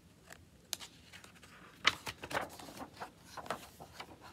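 Pages of a large picture book being turned by hand: a few papery rustles and soft flicks. The loudest is about two seconds in, with another cluster about three and a half seconds in.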